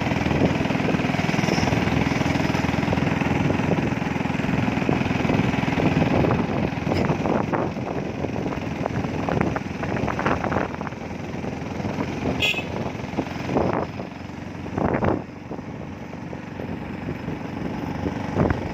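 A vehicle running on the move, its engine and road noise steady and loudest in the first several seconds before easing off, with a few short sharp sounds later on.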